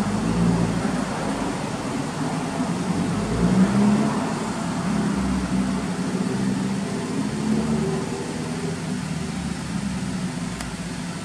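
Honda K20A 2.0-litre inline-four running through a Mugen titanium exhaust, with a brief light rev about three and a half seconds in before settling back to idle.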